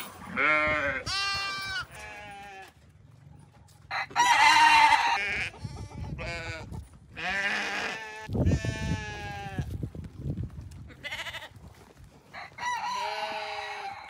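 Sheep and lambs bleating, about ten calls one after another, some high and some lower. The loudest, about four seconds in, lasts over a second.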